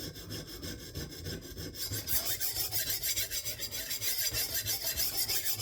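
Diamond sharpening stone on a KME guided-rod sharpener rasping in quick back-and-forth strokes along the edge of a 52100 steel kitchen knife, growing louder and brighter about two seconds in.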